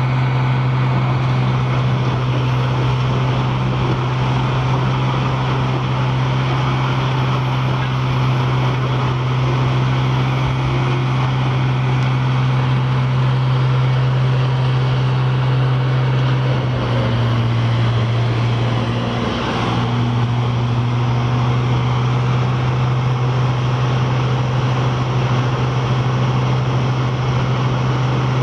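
Engine of a large wood chipper running steadily at high speed, a loud continuous drone; the engine note sags briefly a little over halfway through, then recovers.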